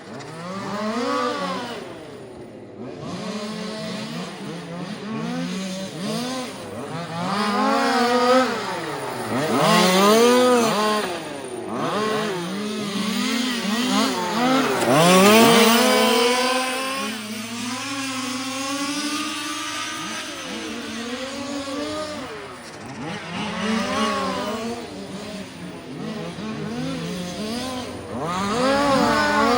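Small two-stroke petrol engines of 1:5-scale RC cars running hard, their pitch rising and falling over and over as the throttle is opened and shut through the corners.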